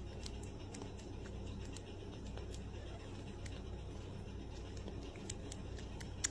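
A cat feeding: a quick, irregular run of small sharp clicks from its mouth, several a second, with one louder click near the end, over a low steady hum.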